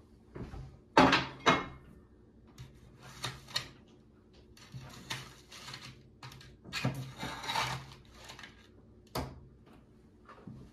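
Tableware handled on a wooden table: a plate knocks down twice about a second in, then a pie server scrapes and cuts through a pie in its pan in several short bursts as a slice is lifted onto the plate, with a single click near the end.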